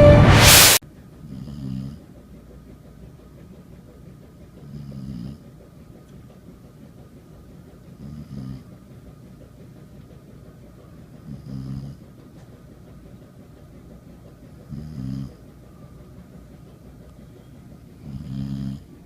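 A sleeping dog snoring: six short, low snores, evenly spaced about three seconds apart. Loud intro music cuts off just after the start.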